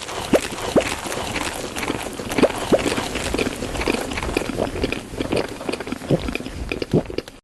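Close-up wet eating sounds: chewing and mouth smacks, a rapid run of small wet clicks mixed with short plopping pops.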